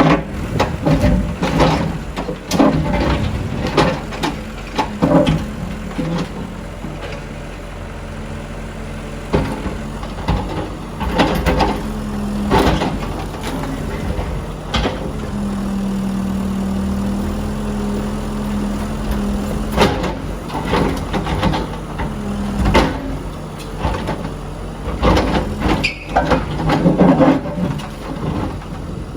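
Backhoe loader's diesel engine running, working harder under hydraulic load for a few seconds in the middle, with repeated knocks and crashes of demolition debris throughout.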